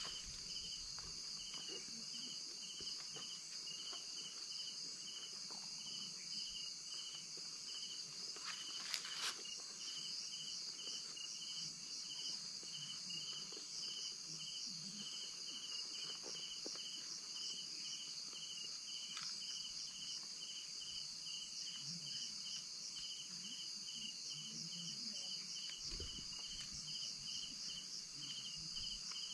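Night insects: crickets chirping in a steady pulse about twice a second over a continuous high-pitched insect drone, with a brief rustle about nine seconds in.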